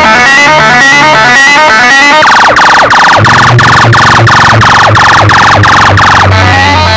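Very loud electronic dance music from a DJ sound system: a rapid repeating synth riff over a pulsing bass beat, with a run of quick, falling, siren-like synth sweeps from about two seconds in until near the end.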